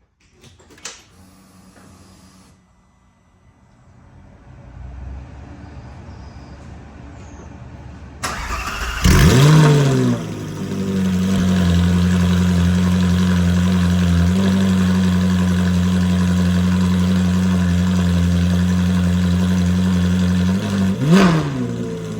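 Ferrari 458 Speciale's V8, breathing through a full Novitec exhaust, cold-starting. After a few quiet seconds with a click and a faint rising whir, the starter cranks about eight seconds in and the engine fires with a loud flare of revs. It then settles into a steady idle, with one short rise and fall in revs near the end.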